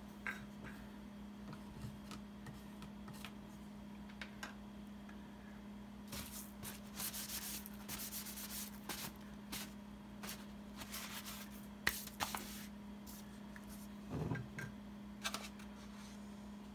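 Quiet workshop handling sounds of paint being prepared: a wooden stir stick in a paint can, and a stretch of paper-towel rubbing as the stick is wiped, with small clicks and knocks of cans and cups. A steady low hum sits underneath.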